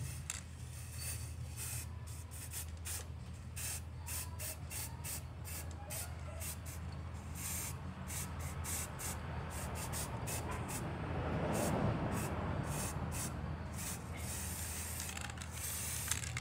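Aerosol spray-paint can hissing in many short bursts, each press a brief spray, with a few longer sprays in between.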